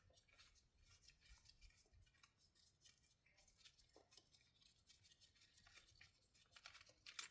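Near silence with faint, scattered light clicks and rubs of hands handling small parts, and a slightly sharper click near the end.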